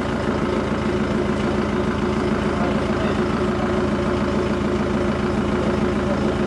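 Police van's engine idling steadily, an even, unbroken low hum.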